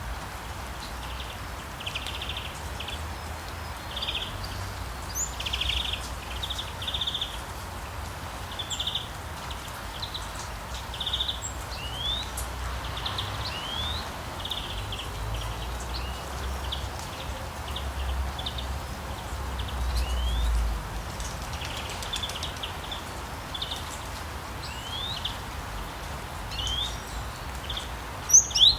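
Steady rain with small birds chirping over it in short repeated calls and quick rising whistles. A low rumble swells about twenty seconds in, and a loud sharp call comes near the end.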